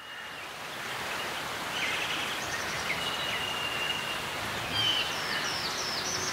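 Several birds chirping in short calls over a steady, even background hiss, which fades in from silence over the first second.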